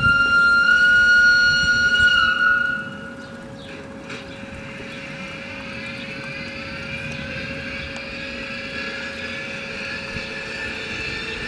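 LGB Krokodil Ge 6/6 I model's ESU LokSound XL V4.1 sound decoder giving one long, steady horn blast that stops about three seconds in. After it the decoder's electric-locomotive running sound goes on more quietly: a steady hum under a whine that rises slowly as the model rolls along.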